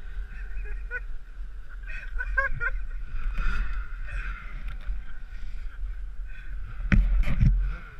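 Snowmobile engine running steadily at idle, with a low rumble of wind and handling noise on the microphone and a few loud knocks near the end.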